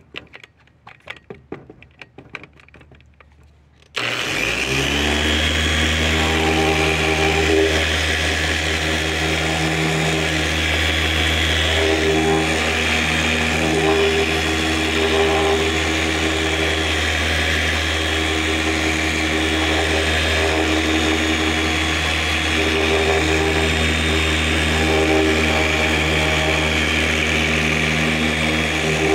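Electric polisher with a polishing pad, switched on about four seconds in and running steadily as it buffs polishing compound on a plastic headlight lens, its pitch wavering slightly under pressure. Before it starts there are only faint handling clicks.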